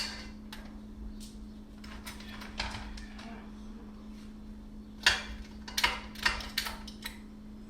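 Kitchen clatter of a cooking pot and utensils being handled: scattered sharp knocks, with a quick run of five or six clacks about five to seven seconds in, over a steady low hum.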